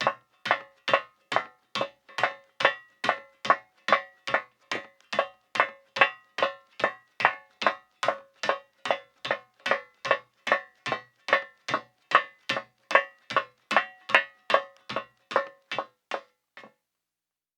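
Women's high-heeled footsteps on metal, a steady walking pace of about two and a half sharp, ringing clicks a second, stopping near the end with a fainter last step.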